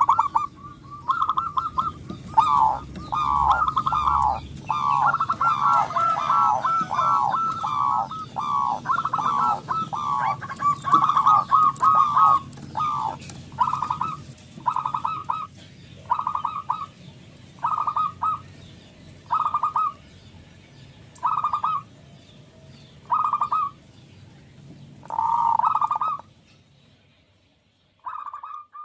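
Zebra dove (perkutut) cooing in quick rippling phrases, at first in a fast, overlapping run, then as single phrases every second or two. The calls thin out and stop about three seconds before the end, with one short coo right at the end.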